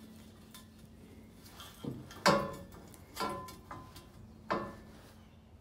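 Needle-nose pliers clicking and scraping against a steel mounting plate while fishing a wire out through a drilled hole: about five sharp metallic taps, each with a brief ring, the loudest a little over two seconds in.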